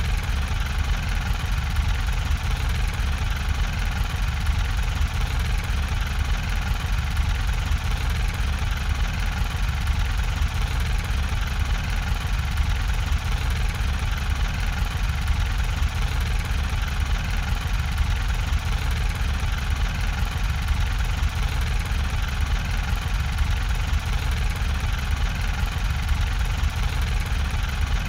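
A machine running steadily with a deep, unbroken rumble and an even mechanical hiss above it.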